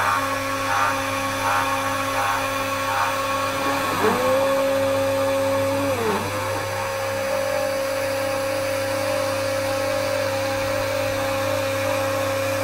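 Homemade CNC router's spindle running with a steady whine while its small bit cuts a groove into fiberboard. Faint pulsing in the first few seconds; the whine's pitch dips briefly and recovers twice, about four and six seconds in.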